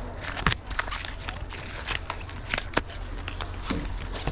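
Rigid plastic trading-card holders, including screw-down cases, clicking and clacking against each other as a stack of them is shuffled by hand: a scatter of sharp, irregular clicks over a low steady rumble.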